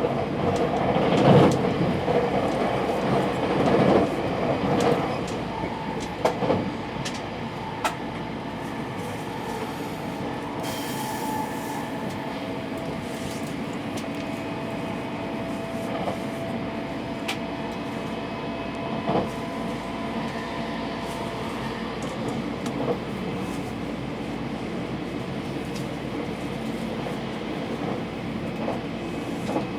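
Cabin sound of a 683 series electric express train running: a steady rumble of wheels on rail, louder in the first few seconds, with scattered clicks from the track and a faint steady whine through the middle.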